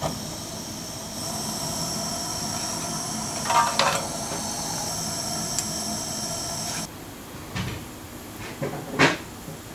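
Bamboo firewood in a wood stove hissing steadily with a faint whistle as steam escapes from it; the hiss cuts off suddenly about seven seconds in, followed by a few light knocks.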